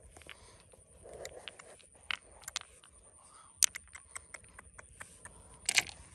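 A series of sharp, irregular clicks and knocks, with the loudest one about halfway through and another near the end, over a faint steady high-pitched whine.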